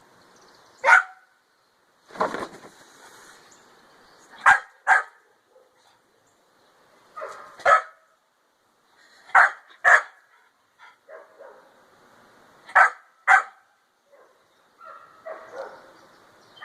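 Pit bull barking in short, sharp barks, about nine of them spaced a few seconds apart, several coming in quick pairs.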